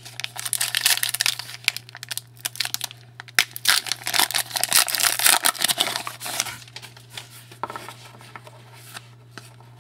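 A trading card pack's wrapper crinkling and tearing as it is opened, dense and crackly for about six seconds, then softer clicks and rustles of the cards being handled.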